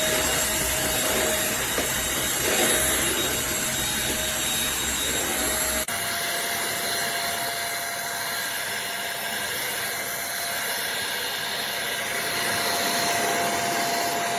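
Eureka Blaze stick vacuum running with a steady whine over its motor noise. About six seconds in, the sound changes abruptly: the low rumble drops away and the whine steps slightly higher.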